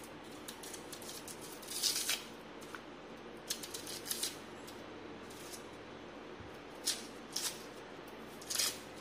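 Dry, papery outer skin of a small red onion crackling and tearing as it is peeled off with a knife. It comes in short crisp bursts about two seconds in, around four seconds, and a few times near the end.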